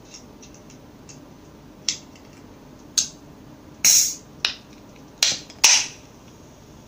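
A person drinking a canned carbonated soda close to the microphone: a handful of sharp, clicky sips and swallows, the longest and loudest about four seconds in and three more quickly after it.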